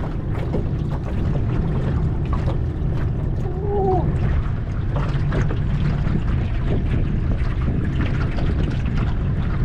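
Steady low wind and water noise around a small aluminium dinghy, with scattered light clicks and knocks and a brief squeak about four seconds in, while a fish is fought on a spinning rod.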